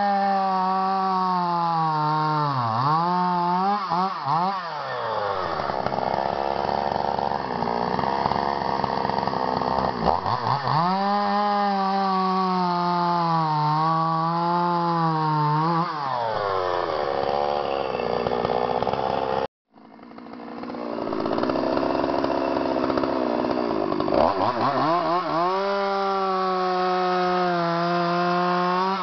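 Stihl-branded two-stroke chainsaw cutting through logs at full throttle. Its engine pitch sags and wavers as the chain bites into the wood, falls back between cuts, and rises again each time the throttle is opened.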